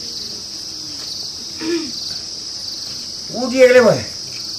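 Crickets chirring steadily, with a short call that rises and falls in pitch: a faint one a little under two seconds in and a loud one about three and a half seconds in.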